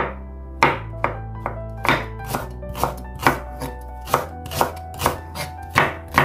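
Chef's knife slicing through king oyster mushroom and then Korean large green onion on a wooden cutting board. Each cut ends in a sharp knock on the board, about two to three a second, in an uneven rhythm.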